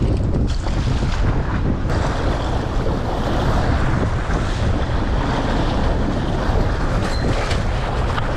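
Wind buffeting the microphone over water rushing and splashing along the side of a boat under way.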